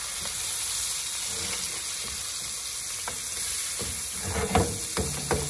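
Fish fillets sizzling as they fry in butter in a nonstick frying pan, a steady hiss, with a nylon spatula scraping and knocking against the pan a few times in the second half.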